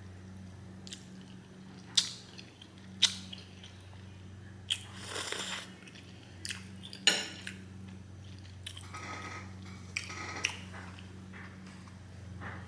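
Close-up chewing of a mouthful of homemade spaghetti with meat sauce, broken by half a dozen sharp clicks and smacks. A low steady hum runs underneath.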